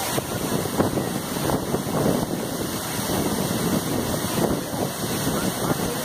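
Waterfall rushing and splashing down a rock face, a steady noise close to the microphone.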